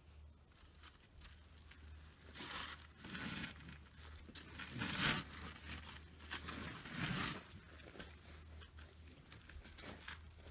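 A few short scuffing noises, loudest about five seconds in, over a low steady hum.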